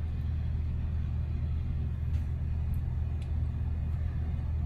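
Steady low rumble in the background, with a few faint clicks about two to three seconds in.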